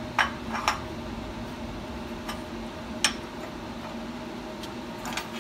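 A few light metallic clinks as angle-cut pieces of square metal tubing are handled and set against a steel clamp fixture on a welding table: four separate short clicks over a steady low hum.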